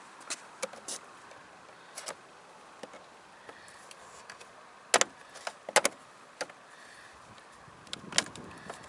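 Plastic clicks and snaps as a Peugeot 308 door mirror glass is pried off its mount with a plastic shoehorn. Single clicks come every second or so, with a cluster of sharper snaps about five to six seconds in as the glass's clips let go.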